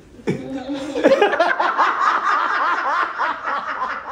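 Audience laughing and chuckling, many voices overlapping, swelling up about a second in.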